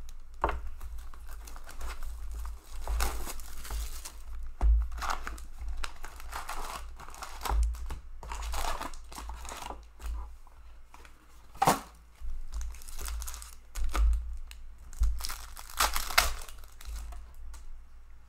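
Upper Deck Series Two hockey card box and its foil packs being torn open by hand: irregular ripping and crinkling of cardboard and foil wrappers, with one sharp snap a little past the middle.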